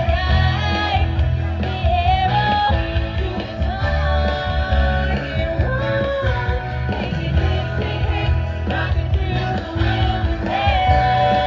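A woman singing lead into a handheld microphone over amplified rock-pop backing music with a steady bass line, her voice holding long notes with vibrato.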